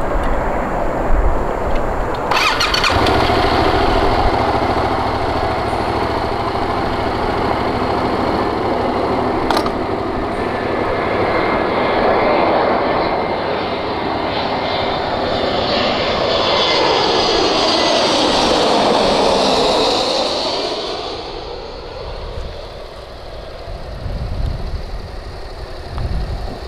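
Twin-engine Airbus A320-family jet airliner on final approach, flying low overhead with its engines giving a steady rumble and whine. About three-quarters of the way through it swells to its loudest and sweeps down in pitch as it passes, then fades away.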